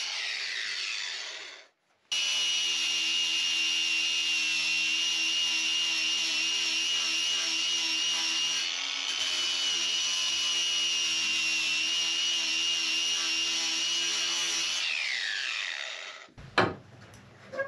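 Ryobi angle grinder grinding away wood to cut a notch in a timber beam, with a steady high-pitched whine. It winds down at the start, and after a brief silence it starts again at full speed and runs steadily. It spins down near the end, followed by a couple of sharp knocks.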